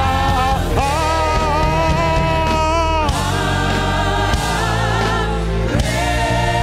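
Gospel worship music: voices singing long held notes over a steady low accompaniment.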